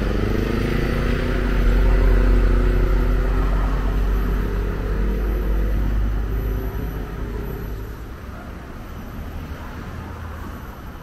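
A large road vehicle's engine passing close by, its drone rising slightly in pitch, then fading after about six seconds to quieter street traffic.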